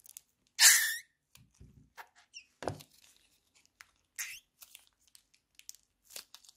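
Clear glue squeezed out of a plastic zip-lock bag into a tray of glue: plastic crinkling and wet squelching, with one loud burst just under a second in and scattered small crackles and squishes after it.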